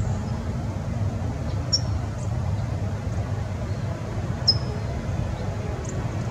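Steady low outdoor rumble of the kind distant traffic makes, with a few short, high bird chirps: the clearest about two seconds in and again about four and a half seconds in.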